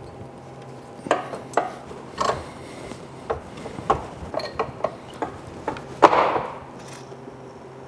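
Metal parts knocking and clinking as a gloved hand works among the engine and transmission under a garden tractor: a string of short, sharp clanks, the loudest about six seconds in with a brief ring after it.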